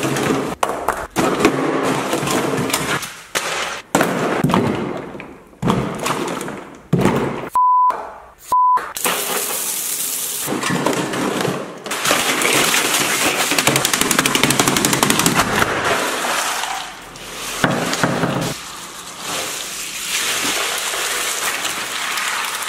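Ice cubes poured from bags and clattering into a plastic-lined chest freezer in short, choppy cuts. Two short high beeps sound about eight seconds in.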